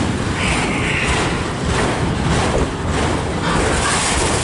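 Freight cars of a long CSX manifest train rolling slowly past, a steady loud noise of wheels on rail, with a brief higher hiss about half a second in.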